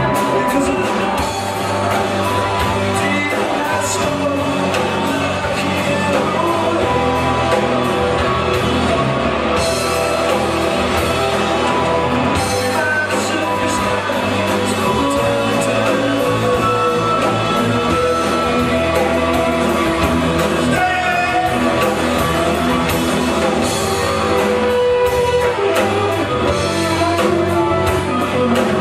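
Live rock band playing a song: a male lead vocal over electric guitar, electric bass and a drum kit with steady cymbal hits.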